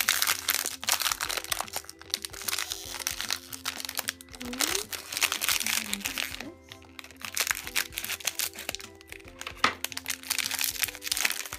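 Foil blind-box pouch crinkling and crackling as hands squeeze and work it open, in spells with a short lull about six seconds in, over light background music.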